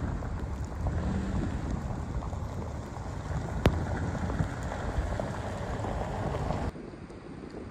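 Strong wind buffeting the microphone in a dense low rumble, with one sharp click about three and a half seconds in. The sound drops abruptly to a quieter wind near the end.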